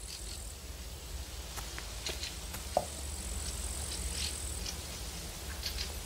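Outdoor field ambience: a faint steady high insect buzz that fades out a little after halfway, over a low rumble, with scattered light rustles and one short knock about three seconds in.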